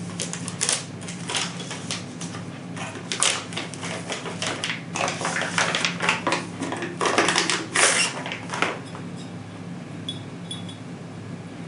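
Clear plastic packaging sleeve crinkling in irregular bursts as it is worked off an aluminium free-float rifle forend, dying away about nine seconds in.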